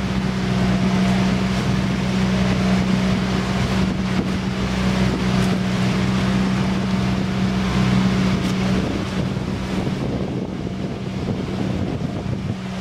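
Banka outrigger boat's small-displacement engine running at a steady drone under way, with wind rushing over the microphone and water hissing along the hull and outriggers. The engine drone fades somewhat for a few seconds near the end.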